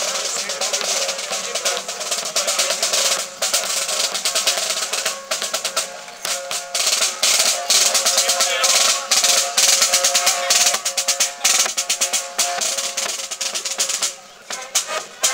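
Marching band drums playing in a parade: rapid snare drum beats and rolls with bass drum, over a few held tones. Near the end the drumming thins briefly to separate sharp hits.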